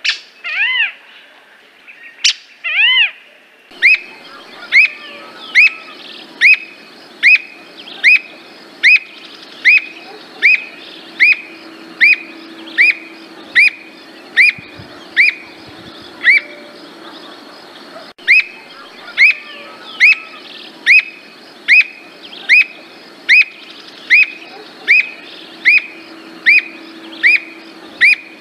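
Squirrel cuckoo calling. Two loud arched notes come in the first few seconds, then a long steady series of sharp, evenly spaced notes, a little over one a second, with a short pause past the halfway point.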